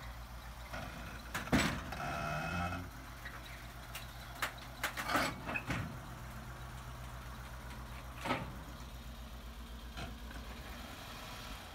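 1973 Mercedes-Benz 450SLC's V8 engine idling as the car is driven down off a car-hauler trailer, with several sharp knocks from the car and trailer, about a second and a half in, around four to five seconds in, and once more about eight seconds in. The engine has sat for a long time and idles unevenly when cold, which a bystander blames on a gummed-up idle air control valve.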